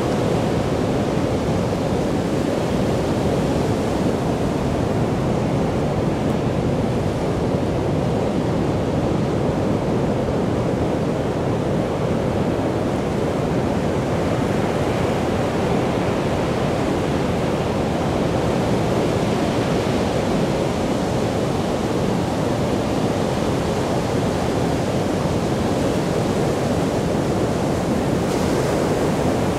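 Sea surf breaking in several lines and washing up a sandy beach: a steady, unbroken roar of waves with no single breaker standing out.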